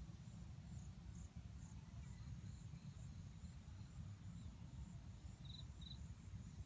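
Faint rural ambience: a steady high insect drone over a low rumble, with two short high chirps about five and a half seconds in.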